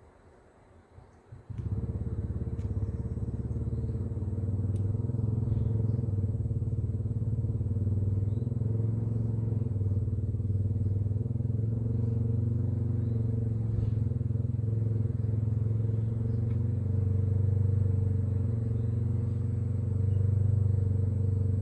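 Chinese diesel parking heater starting up: its fan motor comes on suddenly about a second and a half in, builds for a few seconds, then runs with a steady hum.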